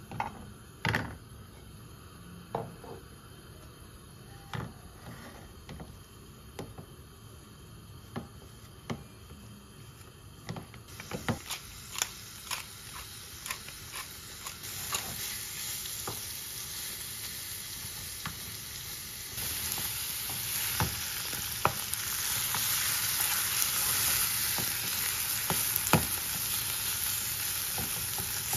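Ground meat and onions frying in a nonstick pan, stirred with a wooden spoon that taps and scrapes against the pan. Sharp taps stand out at first; a sizzle builds up partway through and grows louder toward the end.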